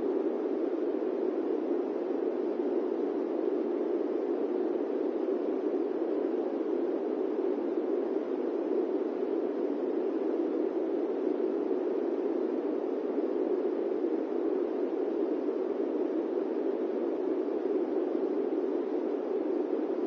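Electric fan running with a steady, gentle whoosh, even and unchanging, deep rather than hissy, with no hum or beat.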